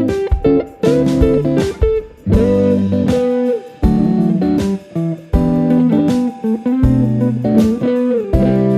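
Background music led by a plucked guitar, with notes played in a steady rhythm.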